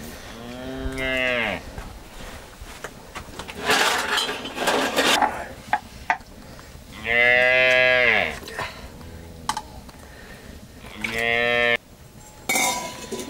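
Cattle mooing: three drawn-out calls, each about a second long and dropping in pitch at the end, the loudest in the middle. Bursts of rustling noise come between the calls, the longest about four seconds in.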